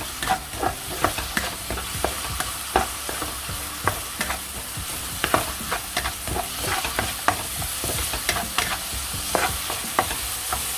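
Chopped garlic and onion sizzling in oil in a frying pan, stirred with a utensil that scrapes and taps the pan at irregular moments.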